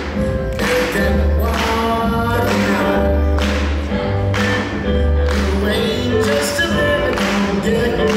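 Swing jazz song with singing and a steady beat.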